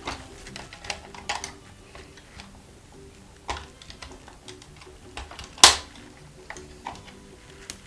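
Plastic clicks and taps from a toy fire engine being handled, its shutters and accessories worked by hand, with one louder snap past the middle. Quiet background music underneath.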